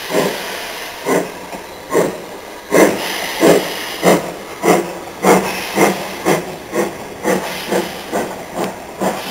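Steam locomotive pulling away with its train, its exhaust beats quickening from about one a second to about two a second over a steady hiss of steam.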